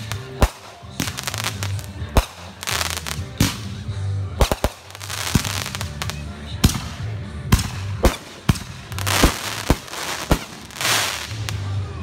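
Consumer fireworks going off in the sky: a run of sharp bangs, a dozen or more, sometimes two or three in quick succession, with several stretches of hissing crackle between them.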